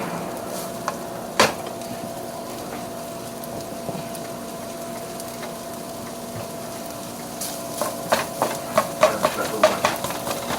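Cooking utensil stirring in a pot, knocking and clinking against it, with a quick run of clinks in the last couple of seconds over a steady background hum.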